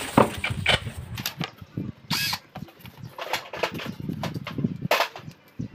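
Irregular clinks and knocks of metal hand tools and sockets being handled around a motorcycle engine on the workbench, with a short burst of noise about two seconds in.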